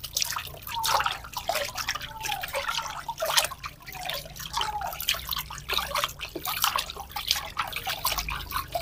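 Water splashing and dripping in a plastic basin as hands scoop it over a baby monkey being bathed: a quick, uneven run of small splashes and drips.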